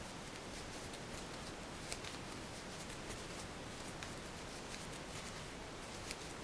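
Faint steady hiss with a few soft ticks and rustles from a metal crochet hook working yarn, stitch by stitch.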